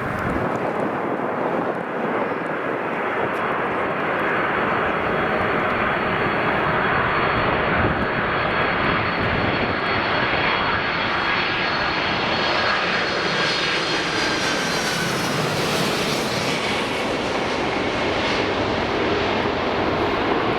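Boeing 747's four jet engines running as the airliner comes in to land: a steady, loud jet noise that grows a little louder, with a high engine whine whose pitch shifts in the second half.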